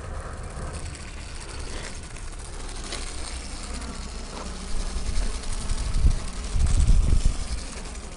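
Small electric drive motor of a K'nex remote-control car buzzing as the car runs on asphalt, with a louder low rumble between about five and seven and a half seconds in.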